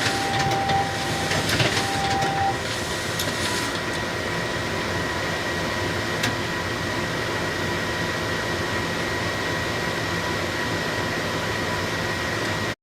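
Photocopier running with a steady mechanical whir. A whine stops about two and a half seconds in, leaving a steady hum with a high tone and a single click about six seconds in; the sound cuts off suddenly near the end.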